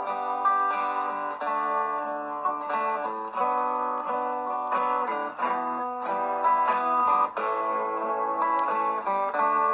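Intro music of plucked acoustic guitar, notes changing about every half second.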